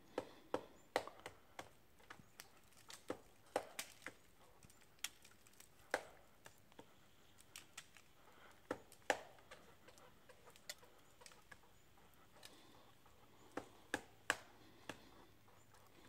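Pileated woodpecker pecking at the wood of a broken tree trunk: sharp single knocks at an irregular pace, some in quick pairs, with short pauses between them.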